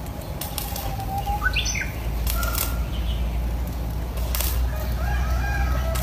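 A peacock's fanned train of feathers rustling in short bursts as it shakes during display, with faint bird chirps in the background.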